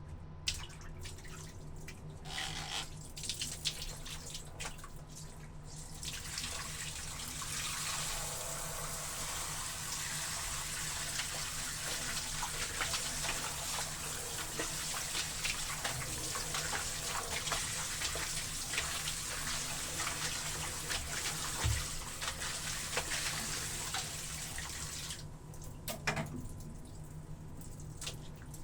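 Water running from a tap into a basin or tub, filling it for hand-washing laundry; it starts about six seconds in and stops near the end, with a few knocks and clatters before and after.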